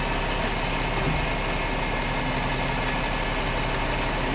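Rollback tow truck's engine idling steadily.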